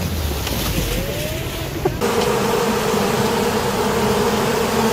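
A rally car crashing into a dirt bank, with a low rumble as it tumbles and dirt scatters. After a sudden cut about two seconds in, a steady buzzing hum comes from a swarm of bees inside a vehicle's cabin.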